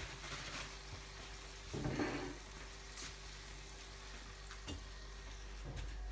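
Breaded cheese sticks frying in a pan of oil: a light, steady crackling sizzle, with a short louder noise about two seconds in.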